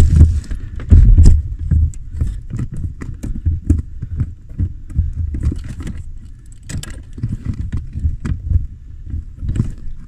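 Irregular clicks, taps and small rattles of plastic and metal as fingers work a Ford Falcon AU's brake light switch loose from the brake pedal arm. A louder thump comes about a second in.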